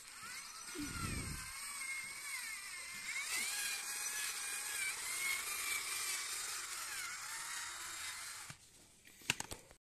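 A 12 V cordless drill whines as it spins a homemade PVC chain-drive tractor gearbox, its pitch wavering up and down, until it stops about eight and a half seconds in. There is a brief low thump about a second in, and a few sharp clicks come near the end.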